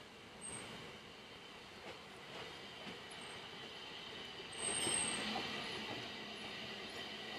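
Narrow-gauge steam train coasting slowly into a station on a curve: a faint rolling of wheels on rail with a thin, steady squeal from the wheels. About five seconds in there is a brief, louder burst of noise.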